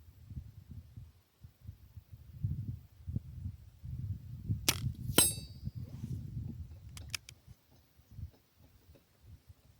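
Artemis CP2 .22 CO2 air rifle firing one shot, a sharp crack, followed about half a second later by a short metallic ring. A few light clicks come a couple of seconds later, over a low rumble.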